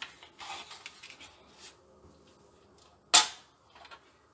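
Cardstock being slid into place on a Scor-Pal scoring board with soft paper rustling, then one sharp plastic click about three seconds in as the bone folder is pulled from its clip holder on the board.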